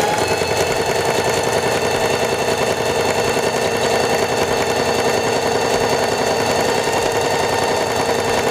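Singer Heavy Duty 4411 sewing machine running at a steady high speed, the needle rapidly stitching a short, narrow zigzag through fabric.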